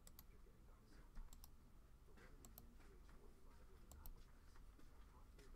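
Faint, irregular clicking of a computer keyboard and mouse, a few keystrokes a second, over a low room hum.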